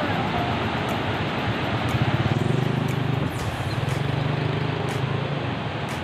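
Whitewater rapids of a cascading waterfall river rushing steadily over rocks, with a low steady hum joining from about two seconds in and dying away about five and a half seconds in.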